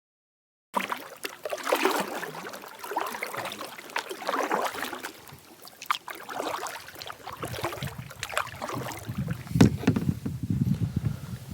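Water splashing and sloshing in irregular swells, with a few small knocks. It starts after a moment of silence and gains a deeper rumble in the second half.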